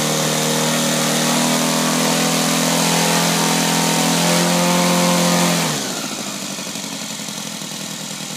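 Saito 200 twin-cylinder four-stroke model aircraft engine on its first run, running steadily at high throttle. About six seconds in it is throttled back quickly: the pitch drops and it settles to a quieter, uneven idle.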